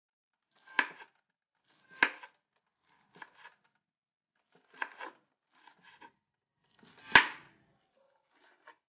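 Kitchen knife slicing a bundle of cocoyam (taro) leaves on a wooden cutting board, each stroke ending in a knock on the wood. The strokes come slowly and unevenly, about one a second, some in quick pairs, with the loudest knock about seven seconds in.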